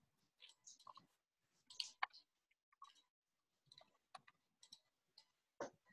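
Faint, scattered clicks and ticks over near silence, stronger ones about two seconds in and near the end.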